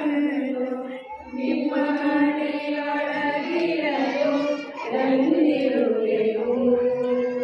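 A voice chanting in a slow sung tone, holding long steady notes, with short breaks about a second in and just before five seconds.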